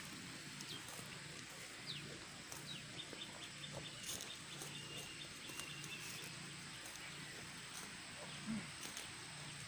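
A goat grazing close by, cropping and tearing grass in small faint clicks. A bird chirps a quick run of short high notes a few seconds in.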